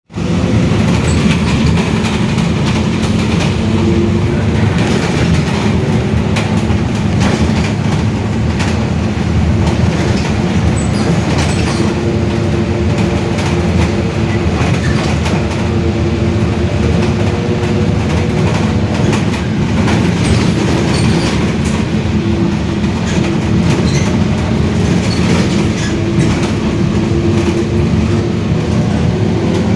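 Mercedes-Benz OF-1721 city bus under way, its differential droning very loudly, with a whine that rises and fades at intervals over steady road and running noise. Frequent short clicks and rattles run through it.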